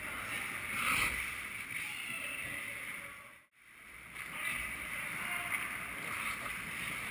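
Ice rink ambience picked up from the hockey goal: a steady hiss of skates scraping the ice. It fades out to silence about halfway through, then comes back.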